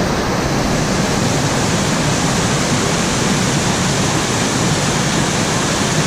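Waterfall pouring over rocks close by: a loud, steady rush of falling water.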